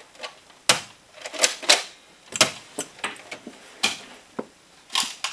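Nerf blasters being primed and fired, with foam darts striking around the room: about eight sharp, irregular clacks and snaps.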